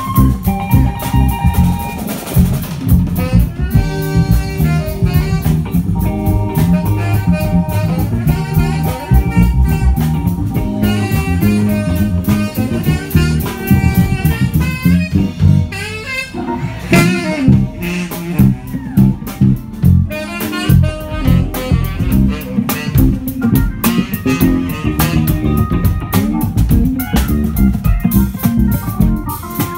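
Live band playing: saxophone, electric bass guitar, drum kit and electric guitar. The saxophone holds long notes over the bass and a steady drum beat in the first half.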